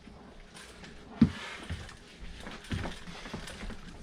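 Handling knocks and thumps on an RV washing machine: one sharp knock about a second in, a brief rustle, then a few softer thumps.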